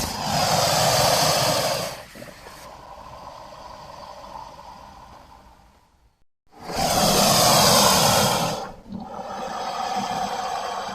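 Film monster sound effect of a giant mutated Komodo dragon: two long roars of about two seconds each, the second starting about six and a half seconds in, each followed by a quieter, drawn-out tail.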